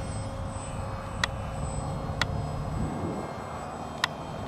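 Small electric RC model plane in flight: its brushless outrunner motor and plastic propeller give a distant drone that bends in pitch around the middle. Three sharp clicks cut through it.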